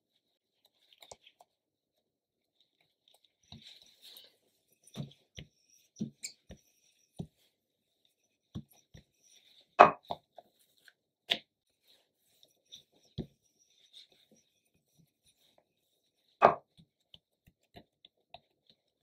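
Small wooden rolling pin rolling out a ball of enriched bread dough on a silicone baking mat: irregular soft thuds and light knocks, with two sharper knocks, one about halfway through and one near the end.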